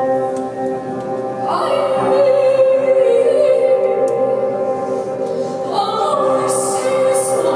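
A woman singing into a microphone over steady, held keyboard chords. The voice comes in about one and a half seconds in and again near the end, sustaining long notes.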